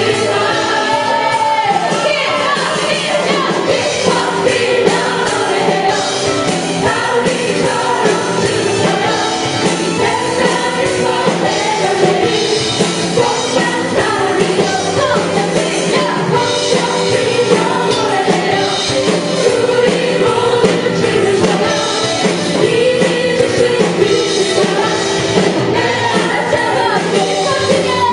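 Worship song performed by a praise team: voices singing a melody over continuous instrumental accompaniment.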